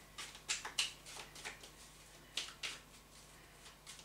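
Tarot cards being cut by hand: irregular soft snaps and slides of the cards, a few at a time with short gaps.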